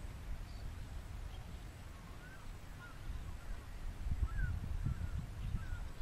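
A flock of terns calling, with short scattered call notes that start about two seconds in, over a low rumble of wind on the microphone.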